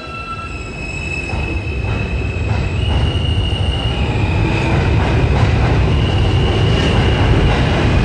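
R160A subway car running through the tunnel, the low rumble of wheels on rail growing louder as it gathers speed, with a high-pitched wheel squeal coming and going over it.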